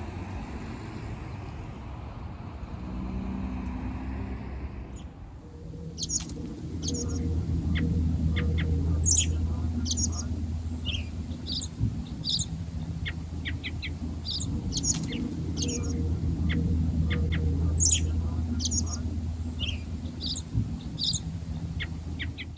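Songbirds chirping and calling in short, quick whistled notes, starting about five seconds in and going on in many separate calls, over a low steady hum.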